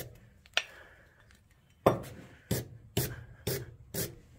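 Wire brush scrubbing rust and corrosion off a steel axle bolt in back-and-forth rasping strokes. After a lull near the start, the strokes come about two a second.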